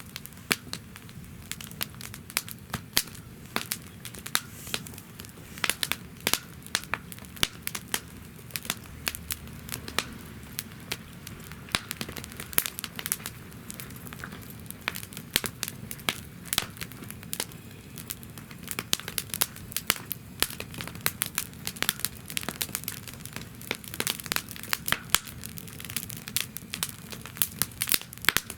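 Wood fire burning in a fire pit stand, crackling and popping in many sharp irregular snaps over a low steady rumble of flame.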